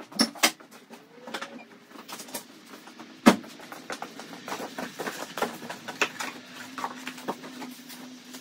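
Small cardboard boxes being carried, set down and handled, with scattered knocks and rustles and one sharp knock about three seconds in. A faint steady hum joins in the second half.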